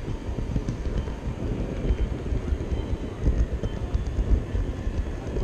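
Model train rolling along the rails, heard from a GoPro riding on the train: a steady low rumble of wheels on track, with the exhibition hall's background noise behind it.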